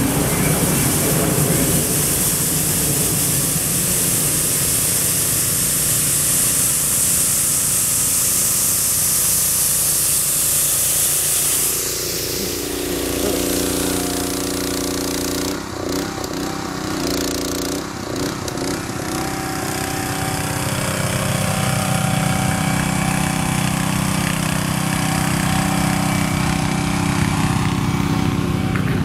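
ATV engine running while an Iron Baltic hydraulically driven rotary sweeper brush scrubs grit and dust off a gravel road. A loud hiss of brush and grit dominates for about the first twelve seconds, then the engine's steady hum comes to the fore.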